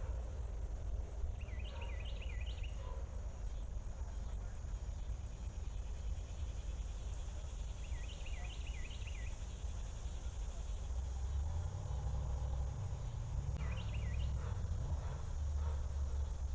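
Outdoor ambience picked up by a trail camera: a steady low rumble with a faint hiss, and three times a short, quick series of high chirps, a bird calling. The rumble grows stronger in the second half.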